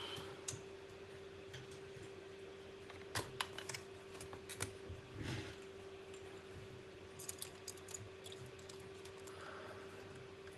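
Scattered light clicks and taps in small clusters, with a faint steady hum underneath.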